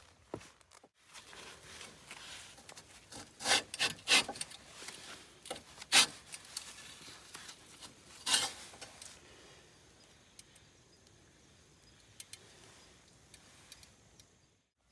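Rubbing and scraping with several sharp knocks and clicks, loudest about three and a half to four seconds in, again at six and at eight seconds, then fading to faint noise.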